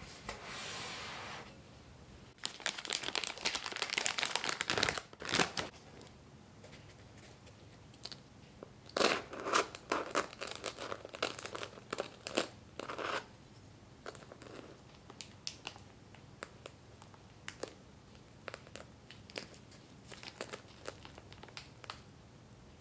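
Crisp baked puff-pastry cream puff shell crackling and crunching as it is cut open, in two dense bursts with sparse faint crackles after.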